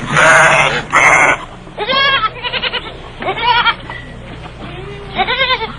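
Goats bleating: two loud, harsh cries in the first second and a half, then four shorter, quavering bleats.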